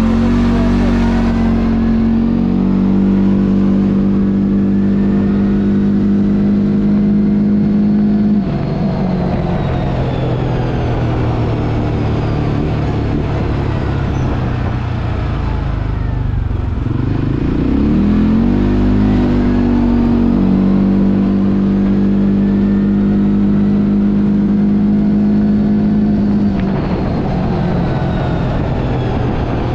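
ATV engine under a rider, climbing in pitch as it accelerates, then holding one steady pitch while cruising. The pitch drops as it eases off about eight seconds in. It rises again around seventeen seconds in, holds steady, and backs off again a few seconds before the end.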